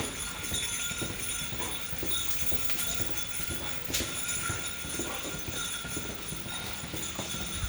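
Search dog moving on a hard indoor floor: quick, irregular claw clicks with light jingling, over a steady background hum, and one sharper click about four seconds in.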